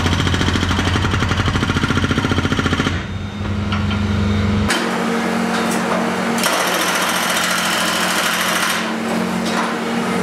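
Skid-steer-mounted hydraulic breaker hammering its chisel into a concrete floor slab to break it up: rapid, repeated blows over the skid steer's engine running. The hammering eases briefly about three seconds in, then carries on.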